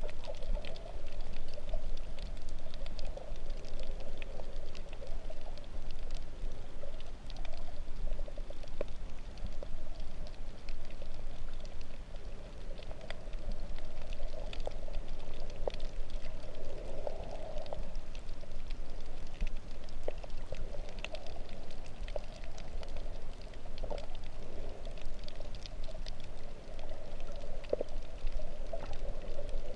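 Water heard underwater while snorkeling: a steady muffled wash of moving water and bubbling, with scattered faint clicks throughout.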